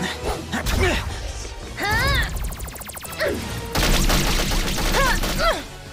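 Cartoon action soundtrack: music mixed with crash and hit sound effects, with a few short swooping pitched sounds and a fast buzzing stretch in the middle.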